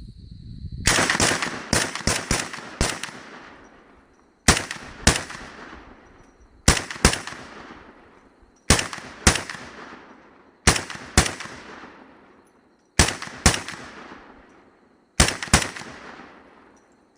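300 Blackout AR-15 rifle firing steel-case rounds. A quick string of about six shots comes first, then pairs of shots about half a second apart, coming every two seconds or so, each with a ringing echo that dies away.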